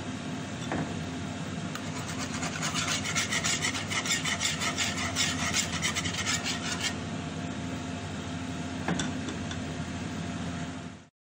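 Wire whisk scraping around a black iron pan of sauce in quick, even strokes, from about two seconds in for about five seconds, over a steady low hum.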